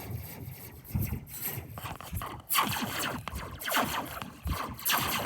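Metal slinky stretched and jostled, its coil ringing in a series of sweeping, zapping tones that come irregularly, several each second, over a low rumble.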